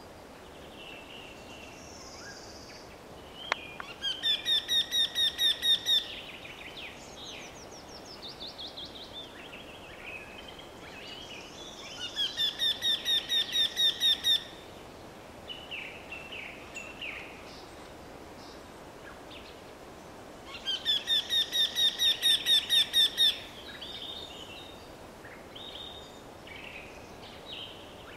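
Eurasian wryneck singing: three series of about a dozen quick, evenly spaced, repeated notes, each series lasting about two seconds and getting a little louder toward its end, about eight seconds apart. Softer chirps of other birds come between the series, and there is one sharp click a few seconds in.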